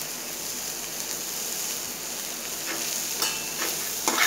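Chopped onions sizzling steadily in mustard oil in a nonstick pan as they turn light brown. A steel spoon stirs and scrapes them a couple of times near the end.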